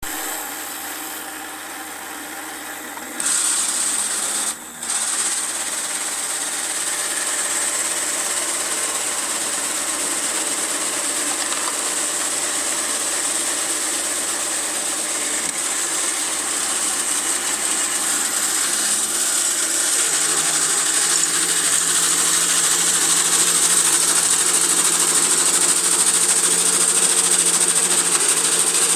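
Mechanism of a Technofix 315 Gigant tin toy construction site running with a steady high whir. It starts up louder about three seconds in, stops briefly about a second later, and its lower tone shifts about two-thirds of the way through.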